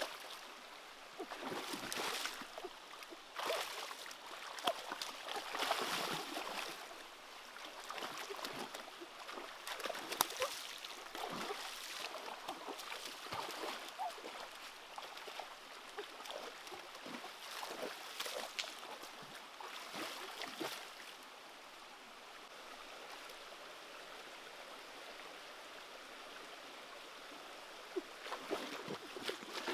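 Shallow stream running over rocks, with repeated splashing of hands and feet moving through the water. The splashing dies away about two-thirds of the way through, leaving only the running stream, and starts again near the end.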